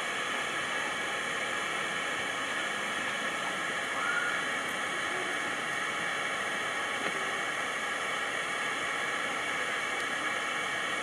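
A steady, even hiss of background noise, with a brief faint chirp about four seconds in.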